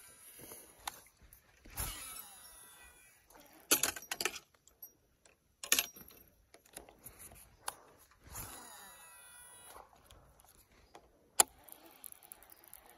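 Baitcasting rod and reel handled through a cast and retrieve: scattered clicks and short metallic rattles, with the loudest bursts a few seconds in and again near the end.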